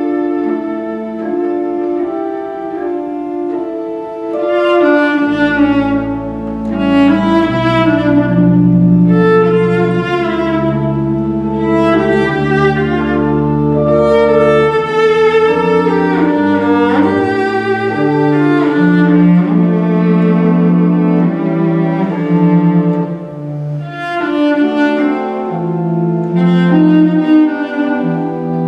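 Cello and organ playing a slow piece together, the cello's bowed melody over sustained organ chords. Deep held bass notes come in about five seconds in.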